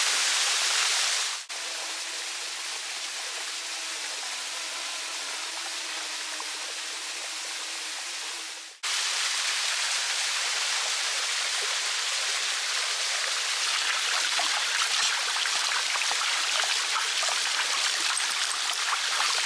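Waterfall rushing steadily, an even hiss of falling water. It drops abruptly to a quieter level about a second and a half in and jumps back up to full level about nine seconds in.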